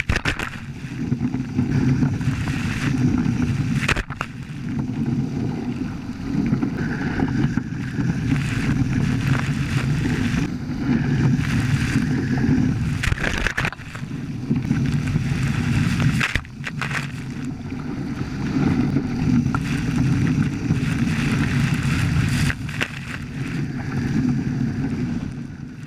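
Wind buffeting the microphone and water rushing past the hulls of a Hobie Cat 14 catamaran under sail, rising and falling in gusts, with a few sharp knocks.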